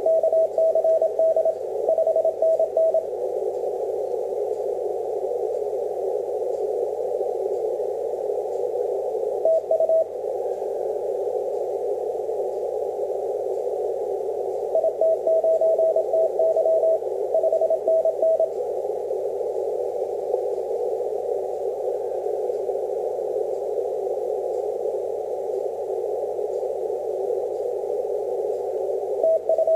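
6-metre amateur radio receiver in CW mode, its hiss narrowed by a 500 Hz filter, with the Morse code (CW) tone of DX station XT2TT keying through in runs of dots and dashes near the start, about ten seconds in, from about fifteen to eighteen seconds, and again at the very end.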